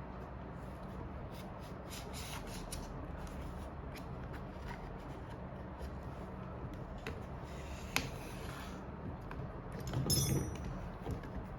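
Small handling sounds from hand tools and parts on an iPhone 7 Plus under repair: light scattered clicks and scrapes, one sharp click about eight seconds in, and a louder rustle near ten seconds, over a steady low hum.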